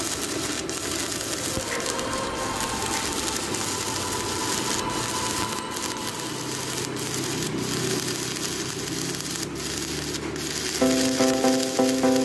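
Stick welding a crack in a steel truck wheel rim with a 3.2 mm electrode: the arc crackles and sizzles steadily. Music with a steady beat comes in near the end.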